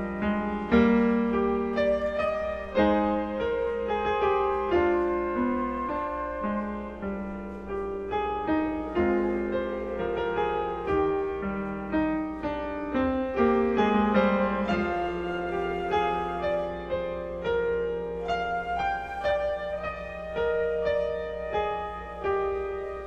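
Live chamber music: a grand piano playing a steady run of notes, joined by a flute.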